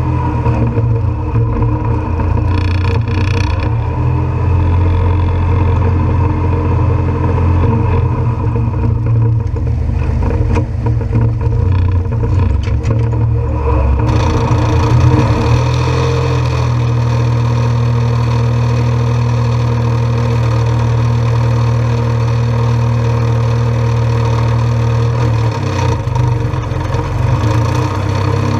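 Massey Ferguson 1523 compact tractor's small diesel engine running steadily at working speed while slurry is scraped, its note shifting slightly about halfway through.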